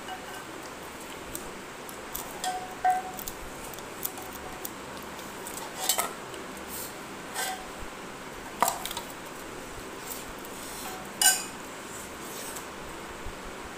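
A metal spoon clinking against a stainless steel pot and plate: several separate sharp, ringing clinks, the loudest a little before the end.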